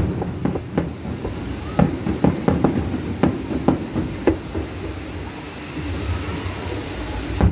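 Fireworks going off over a beach, heard from a distance: a quick run of sharp bangs and crackles through the first four seconds or so, over a steady low rumble.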